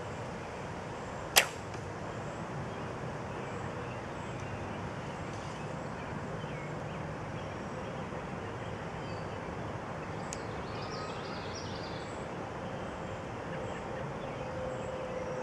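Recurve bow shot: a single sharp snap of the string on release about a second and a half in. A much fainter click follows about ten seconds in.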